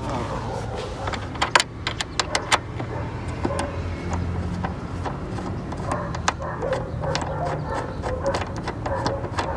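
Scattered metallic clicks and clinks of hand tools working the T50 Torx seat-mounting bolts, thickest in a flurry about one and a half to two and a half seconds in, over a low steady hum.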